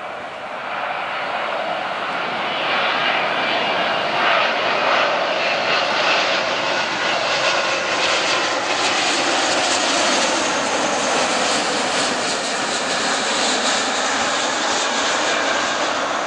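Engine roar of a Boeing 777-236(ER) airliner landing. It grows louder over the first few seconds, stays loud with a wavering rush through the middle, and eases slightly near the end.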